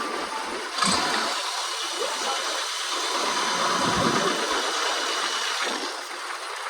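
A motor starts about a second in, runs steadily with a high whine, and winds down near the end.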